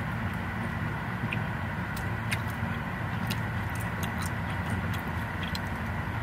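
Steady low hum inside a car's cabin, with scattered faint clicks and mouth sounds as a person chews a chamoy-dipped gummy candy.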